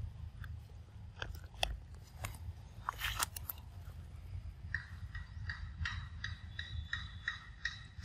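A young macaque biting and chewing a ripe mango, with sharp wet bites and crunches in the first half. From about halfway a short high chirp repeats about three times a second.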